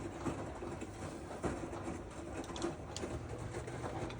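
Washing machine running, a steady mechanical hum with scattered faint clicks; a deeper hum comes in about three seconds in.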